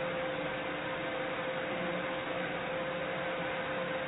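Handheld hair dryer running on high, blowing on a dog's fur: a steady rush of air with one constant motor whine.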